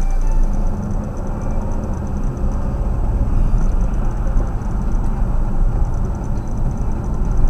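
Car engine and road noise heard from inside the cabin as the car drives through city traffic, a steady low rumble.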